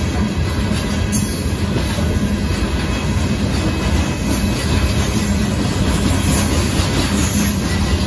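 Union Pacific freight train's loaded gravel hopper cars rolling past on the rails, a steady, continuous rumble of wheels on track.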